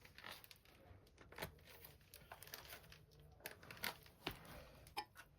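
Faint crinkling and a scattering of small clicks and taps as plastic packaging is handled and opened.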